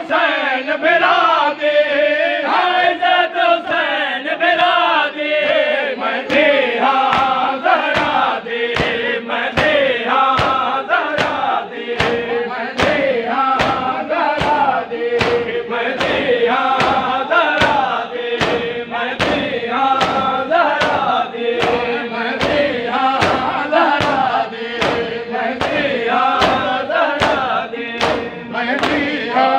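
Male voices chanting a noha, a Shia mourning lament for Imam Hussain, in a crowd. From about six seconds in, a steady rhythm of sharp slaps runs in time with the chant, about one and a half a second: the mourners beating their chests (matam).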